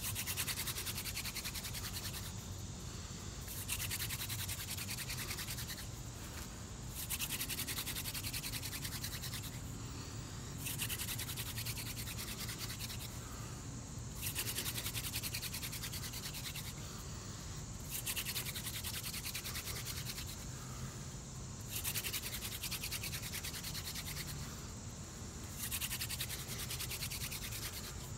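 Horseweed hand-drill spindle spinning in the notch of a wooden paint-stir-stick fireboard: a scratchy grinding rub in runs of two to three seconds, about eight in all, each broken by a short pause as the hands go back to the top of the spindle. It is friction fire-lighting, grinding out hot dust toward an ember.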